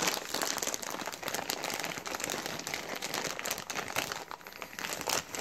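Continuous crinkling and rustling of toy packaging being handled: a dense run of small crackles.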